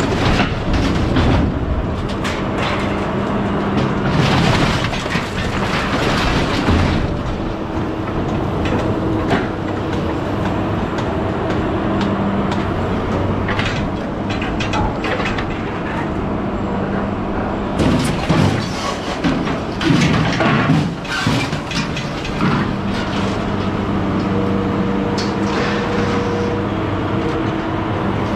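Hydraulic loader boom working over scrap: a steady engine and hydraulic hum that swells and fades as the arm moves, with clattering crashes of scrap metal being grabbed and dropped, loudest a few seconds in and again about two-thirds of the way through.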